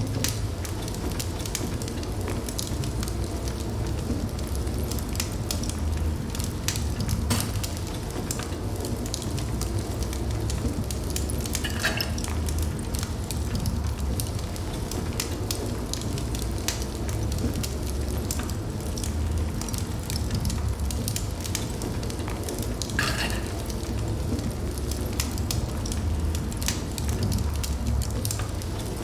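A fire burning in a fireplace: a steady low rumble of flame with irregular crackles and pops throughout, and a short hiss twice, about 12 and 23 seconds in.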